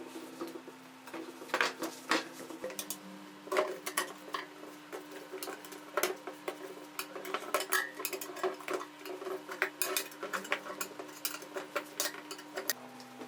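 Small metal parts and hand tools being handled, giving many irregular light metallic clinks and taps over a steady low hum.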